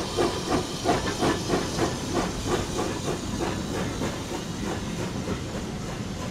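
Hunslet Austerity saddle-tank steam locomotive working a train at low speed. Its exhaust chuffs come at about three beats a second over the hiss of steam from the open cylinder drain cocks. The beats fade about three seconds in, leaving mostly steady hiss.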